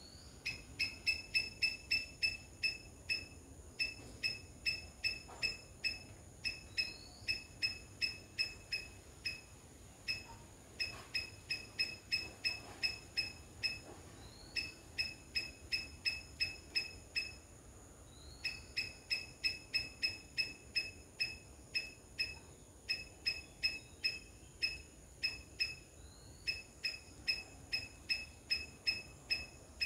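Palm squirrel calling: runs of high chirps at about four a second, each run opening with a short rising note, repeated with brief pauses.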